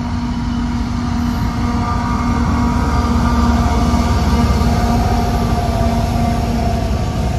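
Eastbound CSX freight train rolling past close by: a steady rumble of wheels on rail with a few thin steady tones over it, growing a little louder toward the middle.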